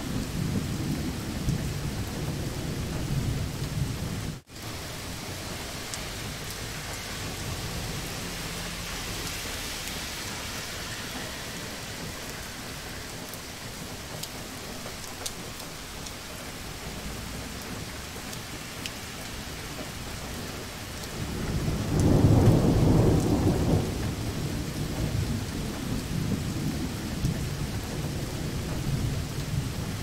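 Steady heavy rain with thunder: a low rumble through the first few seconds, and a louder roll of thunder about two-thirds of the way in. The sound cuts out for an instant about four seconds in.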